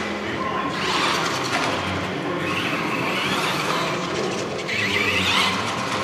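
Traxxas Rustler RC truck's VXL brushless electric motor whining as it accelerates in bursts, the pitch rising three times.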